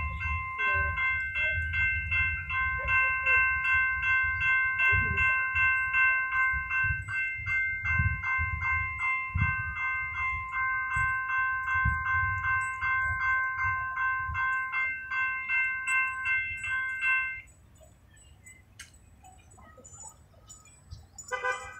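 Railroad grade-crossing warning bell ringing in a quick, even rhythm of clanging strokes over a low rumble, then cutting off suddenly a little over three-quarters of the way through.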